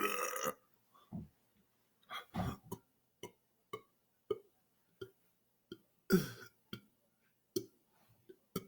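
A man's belch trails off in the first half second. A run of short, faint throat and mouth clicks follows, roughly one or two a second, with a slightly longer voiced one about six seconds in.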